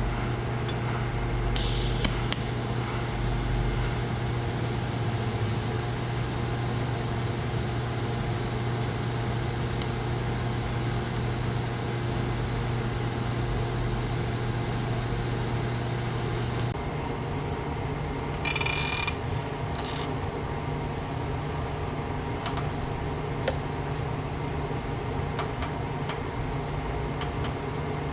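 Steady machine hum with a strong low drone and an even hiss; about two-thirds through, the drone shifts to a slightly higher note, and a short sharp hiss sounds near the same point.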